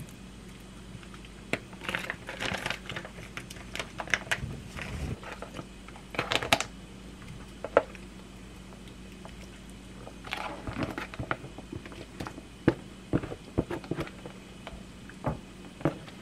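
Food being tipped from a plastic container into a frying pan on a gas stove: scattered clicks and knocks, with short bursts of scraping and crinkling plastic as sausages and sauced leftover tteokbokki slide into the pan. A steady low hum runs underneath.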